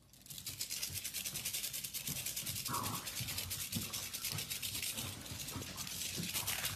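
French bulldog panting fast in a quick, even rhythm, with a short higher-pitched sound about three seconds in.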